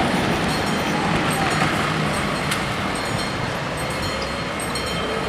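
Railway level-crossing warning bells ringing continuously as the barrier booms lower, over the steady noise of street traffic.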